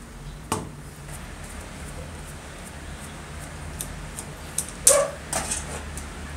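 Clinks and knocks of metal parts and a screwdriver being handled and set down on the bench while an old circular saw is taken apart: a sharp knock about half a second in, light ticks, then a louder clatter of several hits near the end, over a low steady hum.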